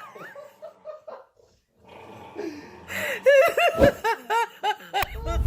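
A person laughing in quick, rhythmic bursts of "ha" in the second half, ending in a loud rush of noise.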